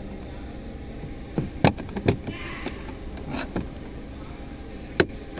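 Plastic dashboard trim on a 2023 Isuzu D-Max being pried up with a thin flat-blade screwdriver: scattered clicks and short scrapes as the clips give, with one sharp click about five seconds in.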